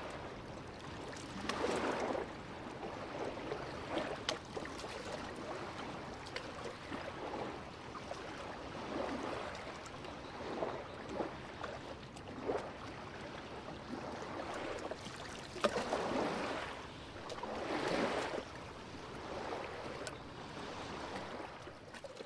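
Small waves on a calm sea lapping and splashing at the water's edge. The sound swells irregularly every couple of seconds, with small clicking splashes between the swells.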